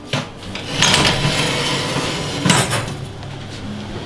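Metal baking tray pushed into an oven along its runners: a scraping slide lasting about a second and a half, then a knock about two and a half seconds in.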